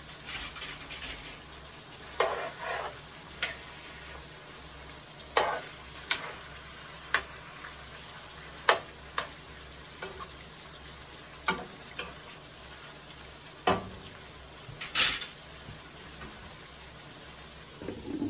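A spoon stirring a pot of brown stew chicken: a dozen or so scattered scrapes and clinks against the pot, the longest about 15 seconds in, over a steady low sizzle.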